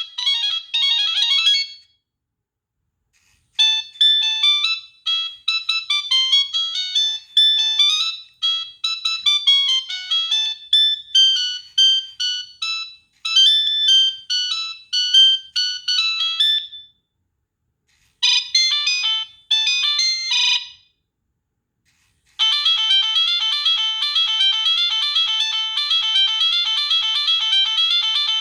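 Preloaded ringtones of a Nokia 3588i mobile phone playing one after another. The end of one tune is followed by a longer melody, then a short one, then a fast repeating tone pattern, each separated by a brief pause.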